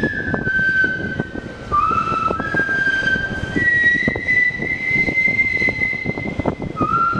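Instrumental interlude of a song's backing track: a high, flute-like melody of long held notes that step up and down in pitch, over a quick run of soft percussive taps.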